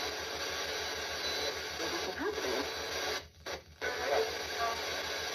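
Spirit-box radio static: a steady hiss with short fragments of voices and tones sweeping through. It cuts out briefly a little after three seconds in.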